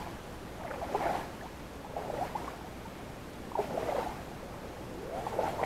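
Footsteps of a person wading in rubber waders through knee-deep water over a soft peat bottom: four slow sloshing strides, each a soft splash and swish of water.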